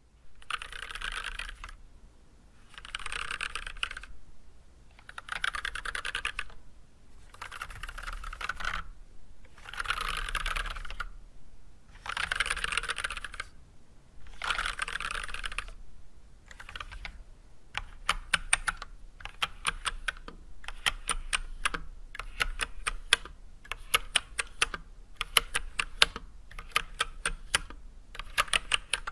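Mechanical keyboard with unlubed Everglide Red 67g linear switches fitted with switch films and white PBT keycaps, typed on in a no-talking typing test. For the first half the typing comes in short dense flurries of keystrokes about every two seconds. Then it turns to steady typing with distinct, separate key clacks.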